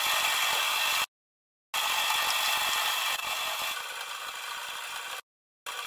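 Portable line boring machine running, its boring bar turning in a steel lug bore: steady machine noise of the drive and cutter. It cuts out completely twice, about a second in and near the end, and is quieter after about three seconds.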